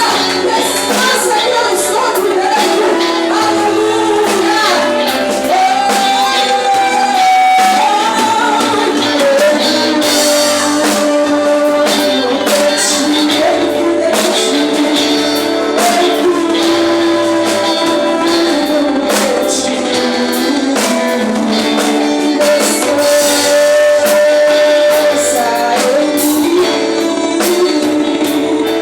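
Live Christian worship song: a singer over a band with drum kit, cymbals and guitar, thin in the bass.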